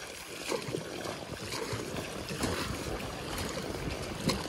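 Oars of an inflatable rowing raft dipping and pulling through lake water, with water splashing and trickling along the hull and a few light knocks.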